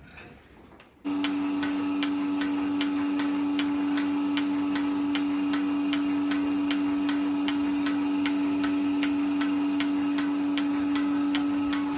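Portable bucket milking machine switched on about a second in: its vacuum pump motor runs with a steady hum while the pulsator clicks evenly, about three times a second, as it milks the cow.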